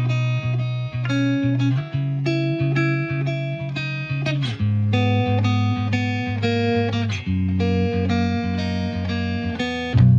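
Background music led by plucked guitar, with a steady bass line and a note change about every half second.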